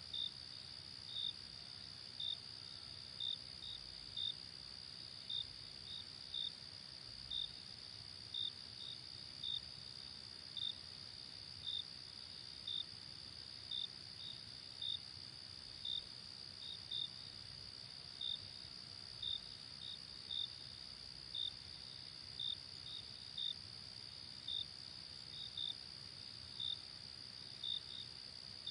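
Insects chirping: short high chirps about once a second, some in quick pairs, over a steady high-pitched trill.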